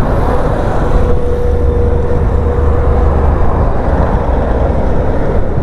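Wind buffeting a helmet-mounted microphone on a moving motorcycle: a steady low rumble and rush that buries the engine and road noise. The rider says the wind noise is still getting through despite moving the mic.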